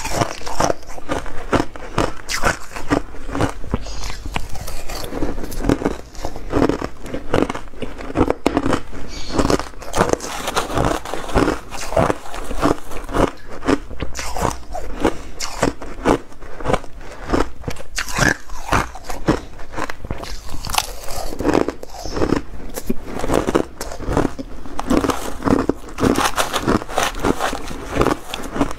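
Crushed ice being chewed close to a clip-on microphone: a continuous run of crunching, crackling bites.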